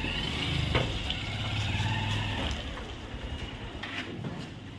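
A vehicle engine idling, a steady low hum that fades out about three seconds in, with a single knock about a second in.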